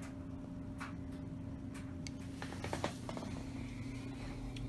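A few light clicks and taps, a small cluster of them about two and a half seconds in, over a steady low electrical hum.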